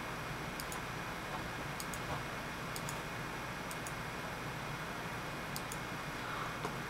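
Quiet steady hum and hiss with faint, sharp double ticks roughly once a second, unevenly spaced.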